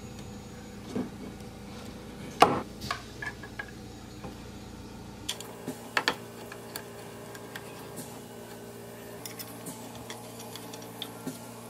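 Scattered light clicks and knocks as hands handle pinewood crib parts and metal hardware, fitting a rail onto wooden dowels and setting a screw. The sharpest knock comes about two and a half seconds in, with a small cluster of clicks around six seconds.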